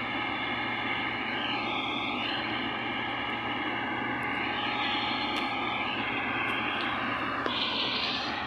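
Combine harvester running steadily as it harvests paddy: a continuous mechanical drone.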